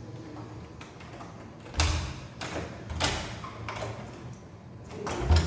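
Several dull knocks and thumps on a room door, a couple about two and three seconds in and the loudest near the end.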